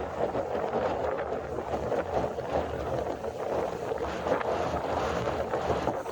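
Wind gusting over the microphone on a stormy beach, with the wash of surf underneath. The noise swells and eases unevenly.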